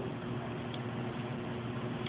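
Steady background hiss with a low, even hum underneath: room tone.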